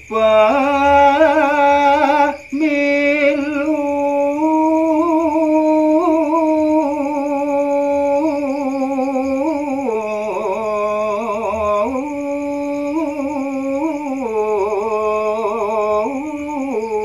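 A man singing a Balinese gaguritan verse in macapat style, unaccompanied: one voice holding long, wavering notes with slow slides between pitches, with two short breaks in the first few seconds. A steady high whine runs underneath.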